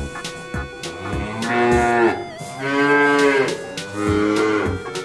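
A zebu ox mooing, three long calls one after another, over faint background music with a light beat.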